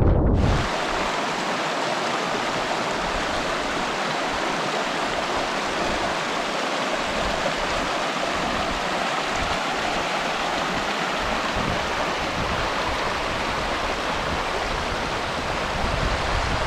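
A fell stream rushing steadily; the sound comes in abruptly just after the start.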